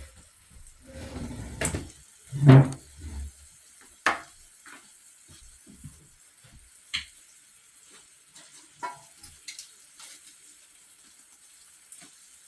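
Knife cutting collard greens on a cutting board: a few scattered sharp taps and one loud thump about two and a half seconds in, over a faint steady sizzle from meat cooking in a pot.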